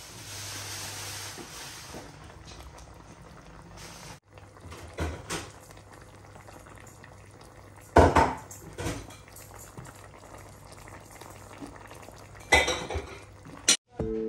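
Fish curry simmering in a stainless steel pot on a gas hob, with a few sharp metal clinks against the pot, the loudest about 8 seconds in and another near 12.5 seconds.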